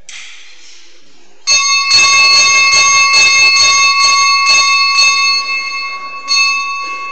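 Small bell, most likely the sacristy bell, rung in quick strokes about three a second for some three seconds, then one last stroke that rings away. It is the signal that Mass is beginning.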